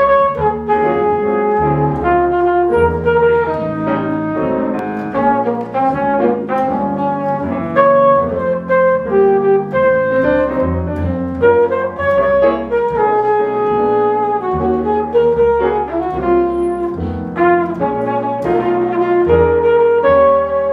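Small jazz combo playing an instrumental introduction: a flugelhorn carries the melody in sustained notes over grand piano chords and double bass.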